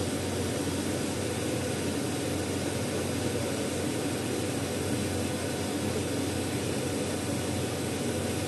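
UNIKONEX flying galvo CO2 laser cutting machine running while it cuts fabric: a steady rushing noise with a low hum, from its exhaust fans and air-assist blowing, unchanging throughout.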